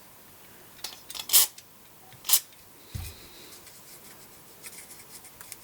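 Short squirts of aerosol contact cleaner sprayed into the radio's volume potentiometer: two strong hissing bursts about a second apart, with a fainter one before them. A dull knock follows, then faint handling clicks.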